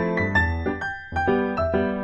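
Background music: a lo-fi song of keyboard notes and chords that start sharply and fade, changing several times a second.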